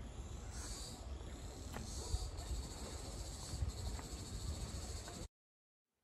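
A steady chorus of insects shrilling in woodland, with the low scuffing and rumble of someone walking on a dirt path. The sound cuts off abruptly to silence about five seconds in.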